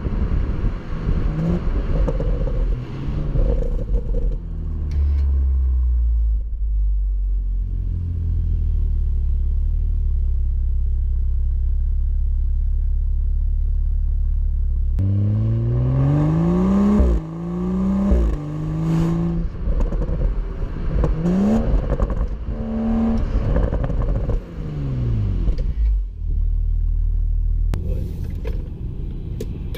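BMW M235i's turbocharged 3.0-litre inline-six heard through its exhaust, first a steady low drone while cruising. About halfway through the engine note climbs hard, drops sharply as at an upshift, and climbs again. It then rises and falls a few more times before settling back to a steady drone.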